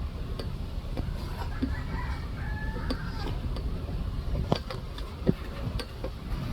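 A rooster crowing once, a bit over a second in and lasting about a second and a half, over a steady low rumble and a few sharp clicks.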